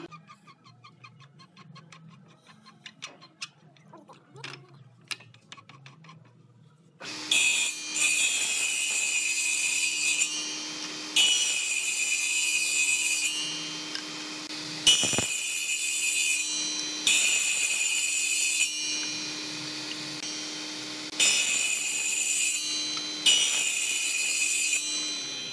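Table saw with a large toothed blade running, after a few quiet seconds of faint ticking, then cutting tenon slots into a hardwood piece in about six separate passes. Each pass is a hissing burst of cutting noise lasting a second or three over the saw's steady hum and whine, with one knock partway through.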